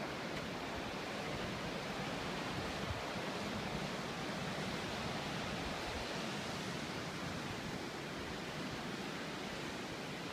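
Steady rushing wash of ocean surf breaking on the beach below the cliffs, heard as a continuous even hiss with no separate waves standing out.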